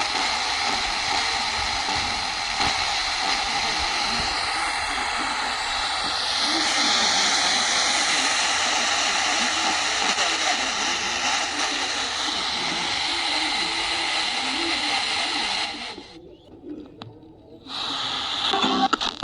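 Portable radio's speaker playing a weak station: steady static hiss with a faint broadcast voice buried in the noise. The sound cuts out for about two seconds near the end, then comes back.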